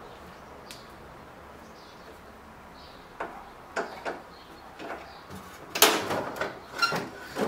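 A few sharp clicks, then clattering knocks and scrapes near the end as the TV's stand is worked loose and lifted off the set.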